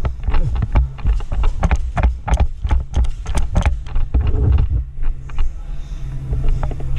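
Rapid, irregular sharp snaps of airsoft guns firing over bass-heavy background music; the shots come several a second and thin out about five seconds in.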